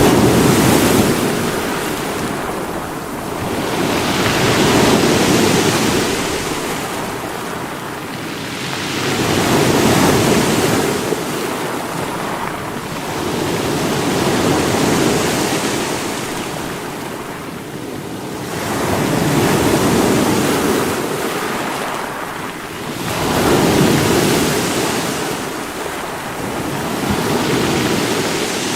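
Sea waves breaking against rocks, each surge swelling and washing back about every four to five seconds in a steady rhythm.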